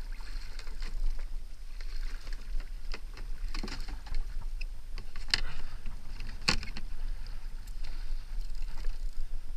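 Water lapping against a fishing kayak's plastic hull, with a few sharp knocks, the loudest a little past halfway, over a steady low rumble of wind on the microphone.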